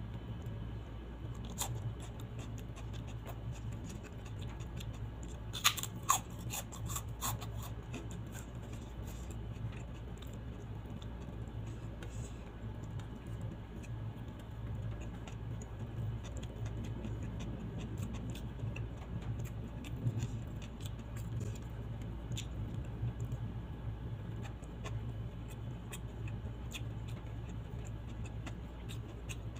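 Close-miked hand-eating sounds: fingers picking up rice and food from a plate and soft mouth and chewing sounds, with a short cluster of sharp clicks about six seconds in, over a steady low hum.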